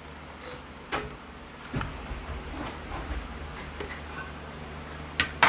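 A few sharp clinks and knocks of kitchen utensils against cookware, spaced out, the loudest near the end, over a steady low hum.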